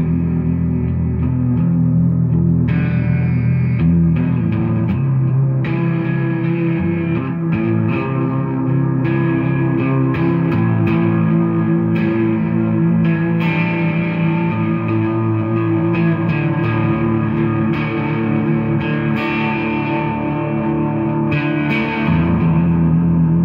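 Electric guitar played through an amplifier: a continuous passage of picked notes and chords with some effects.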